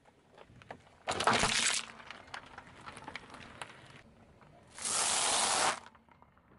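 A car tyre crushing a pair of plastic yogurt cups, with a loud crackling burst about a second in as the cups split, then scattered small crackles. A second loud, even noise about a second long comes near the end.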